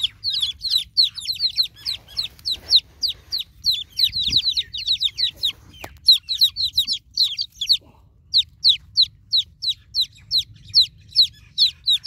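Newborn chicken chicks peeping over and over, each peep a short call falling in pitch, several chicks overlapping at first and then about three peeps a second, calling for the mother hen.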